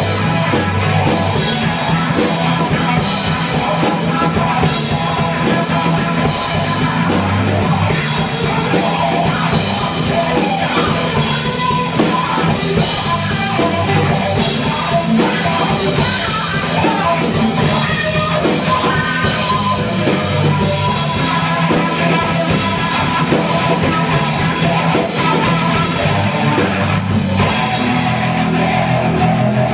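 Live indie rock band playing: electric guitar, bass guitar and a full drum kit with cymbals. Near the end the drums and cymbals drop out, leaving the guitars ringing.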